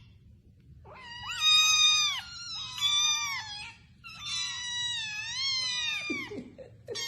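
A cat meowing: after about a second's pause, three long drawn-out meows one after another, each bending in pitch, then a short lower call near the end.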